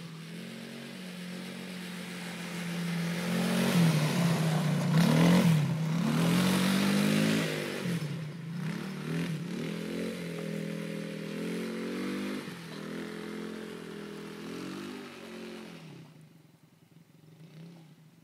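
Quad bike engine revving up and down as it is ridden, its pitch rising and falling repeatedly. Loudest about four to seven seconds in, then fainter, and it fades away about sixteen seconds in.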